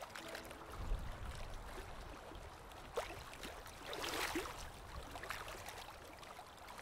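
Faint water ambience: lake water lapping and gurgling, with a click about three seconds in and a louder wash of water noise about four seconds in.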